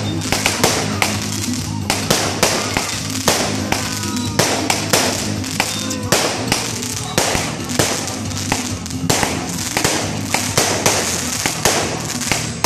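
Fireworks going off in quick succession: a dense run of bangs and crackling pops, several a second, with no pause.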